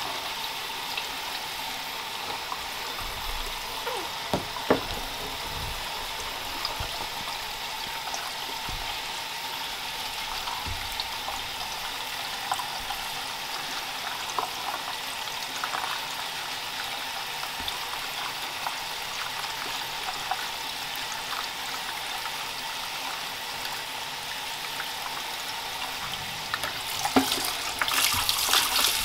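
Bathroom sink tap running steadily into the basin while hands rub shampoo into a child's wet hair, with small wet rubbing sounds. Near the end it turns to louder splashing as the hair is rinsed under the running water.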